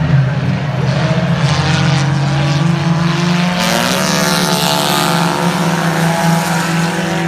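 Race car engines running as several cars lap a paved oval track. About halfway through, one car passes close by, its engine note rising and growing louder and brighter before easing off.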